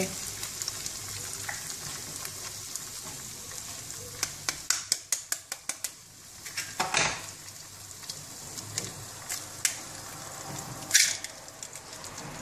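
Eggs frying in olive oil inside bell-pepper rings in a nonstick pan, a steady sizzle. A quick run of sharp crackles and pops comes near the middle. A louder hissing burst follows about seven seconds in, as another egg goes into the hot oil, and a second burst comes near the end.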